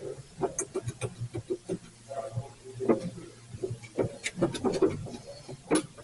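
Hand tools clicking and knocking against metal parts: irregular sharp clicks and taps, several a second, over a steady low hum.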